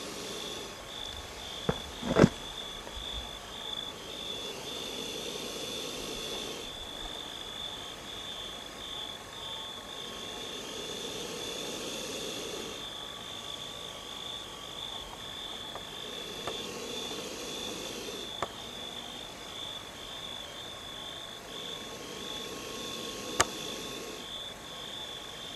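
Night chorus of insects, a steady high pulsing trill, with frogs calling in bouts of a few seconds each. A few sharp clicks cut through, the loudest about two seconds in and another near the end.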